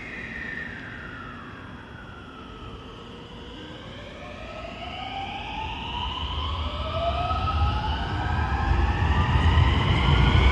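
Electric train pulling away, its traction motors whining in several tones. The whine dips at first, then rises steadily in pitch as the train speeds up. A low rumble of wheels on rail grows louder in the second half as the cars pass.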